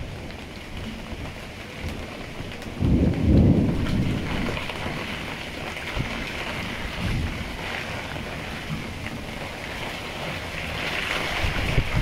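Squall wind and heavy rain: a steady hiss of rain with wind gusting, and loud low gusts buffeting the microphone about three seconds in and again near the end.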